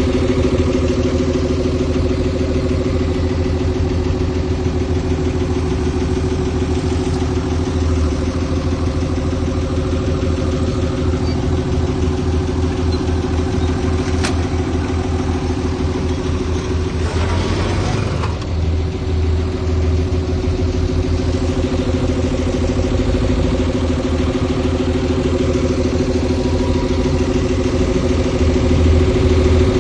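Diesel engine of heavy earthmoving machinery running steadily with a low rumble. About two-thirds of the way through there is a short rushing noise.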